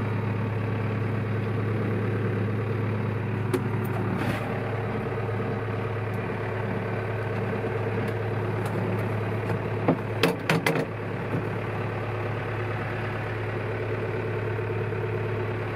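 John Deere 6200's four-cylinder diesel engine running at a steady idle, heard from inside the tractor cab. A quick run of sharp knocks comes about ten seconds in.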